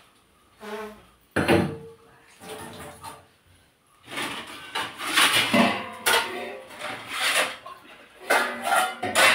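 Metal plates and utensils clattering and clinking as they are handled at a kitchen dish rack and counter. A sharp clank comes about a second and a half in with a brief metallic ring, followed later by a busier run of clinks and rattles.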